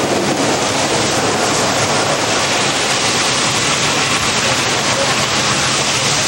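Loud, steady rushing of water from a fire department tower ladder's master stream, its spray drifting across the microphone.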